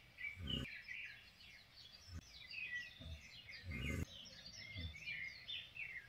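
Several wild birds chirping and calling in quick short notes, a busy morning chorus, with a few brief low thuds on the microphone.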